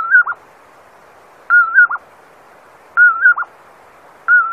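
A nocturnal bird calling: the same short whistled call repeated about every second and a half, each one a wavering note followed by two quick falling notes, over a faint steady hiss.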